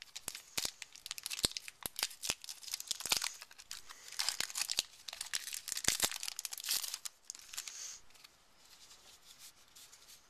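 Foil trading-card booster pack wrapper crinkling and tearing in quick sharp crackles, dying down to faint rustling about eight seconds in.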